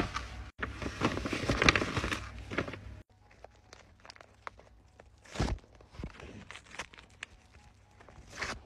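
Paper crinkling and rustling as a handmade paper blind bag is handled and opened, dense for the first three seconds, then sparser crinkles and small clicks of paper being unwrapped, with a soft thump about halfway through.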